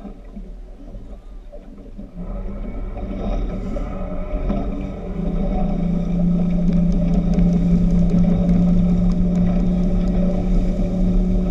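Speedboat engine running, getting louder about two seconds in and holding a strong, steady drone from about five seconds on as the boat speeds up.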